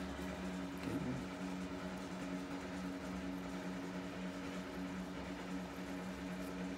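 A steady low machine hum, even in pitch, from a running motor or appliance, with a brief faint sound about a second in.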